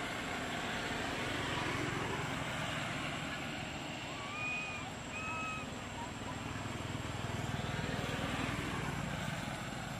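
Steady outdoor background rumble of a distant engine, swelling about seven seconds in, with two short high chirping calls about four and five seconds in.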